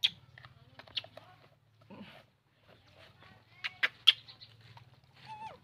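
Scattered sharp clicks and taps from handling a baby macaque and its small plastic feeding bottle on a table, with a short squeaky animal call that drops in pitch near the end, over a faint low steady hum.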